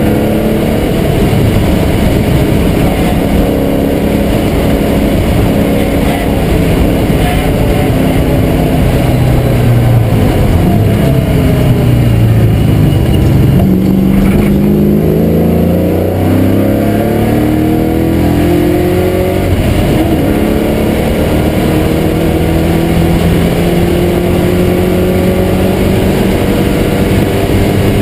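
TVR Tuscan race car's engine heard loud from inside the cabin at racing speed. The revs fall around the middle as the car slows for a corner, then climb again in several rising pulls as it accelerates down the next straight.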